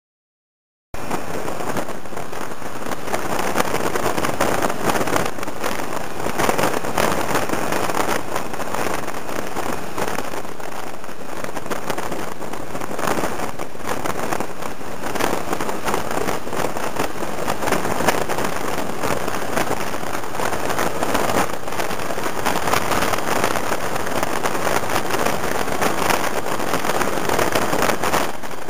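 Wind buffeting the microphone of a camera riding on a moving motor scooter, mixed with the scooter's running and road noise: a steady, rough rush with fine crackle. It cuts in suddenly about a second in after silence.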